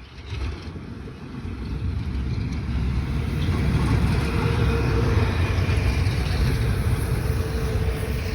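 A motor vehicle running, a low rumble with a faint steady hum. It grows louder over the first few seconds, then holds steady.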